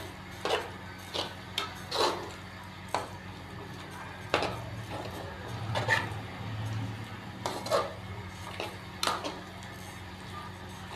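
A metal spatula scraping and knocking against a metal karahi as thick semolina halwa is stirred and mixed. The strokes are short and irregular, about one a second.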